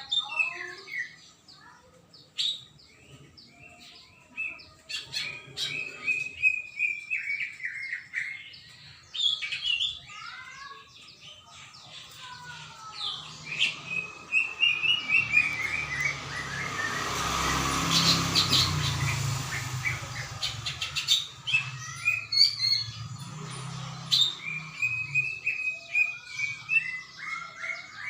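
Cucak ijo (green leafbird) singing energetically: rapid runs of sharp whistled chirps and falling note series, repeated again and again. Partway through, a broad rushing noise swells and fades under the song.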